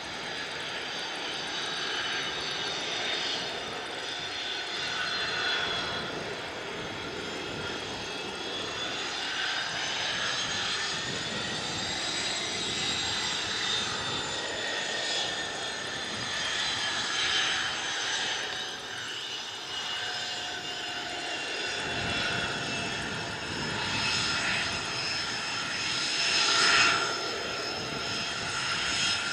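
Learjet 45XR's twin Honeywell TFE731 turbofans whining steadily at taxi power, over a constant rushing noise. The whine rises in pitch about twelve seconds in, then eases back down. The sound swells briefly near the end as the jet taxis closest.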